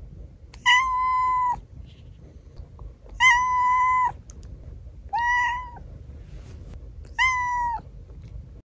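A young tabby-and-white domestic cat meowing four times, about two seconds apart. Each meow is a high call held level in pitch for under a second and dropping slightly at its end.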